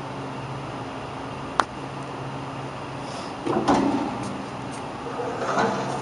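Thin sheet metal rattling and clattering as it is handled in a slip roll, in two bursts, one about three and a half seconds in and one just before the end, after a single sharp click near the second-and-a-half mark. A steady low hum runs underneath.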